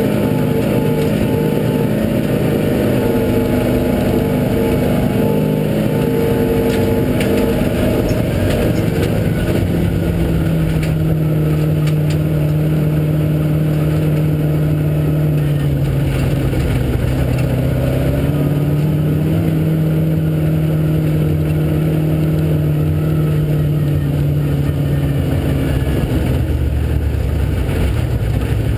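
Off-road vehicle's engine running steadily under load while driving over sand. Its pitch drops about a third of the way through, sags a little after halfway, then climbs again.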